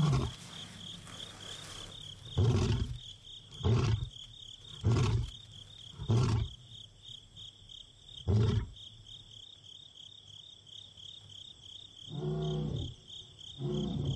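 Male lion's roaring bout trailing off into five deep grunts about a second apart, then two softer calls near the end: a nomadic male calling to locate his companion. A steady pulsing chirp of insects runs underneath.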